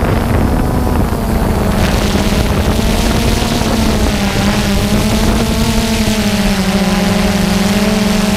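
Multirotor camera drone's propellers and motors whirring, heard from the drone itself, with a pitch that wavers up and down as it manoeuvres and holds steadier over the last couple of seconds.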